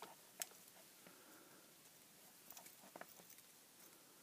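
Near silence broken by a few faint clicks and taps of fingers working the small wire crimp connectors in an aquarium heater's plastic head. The sharpest click comes about half a second in, and a few lighter ones follow later.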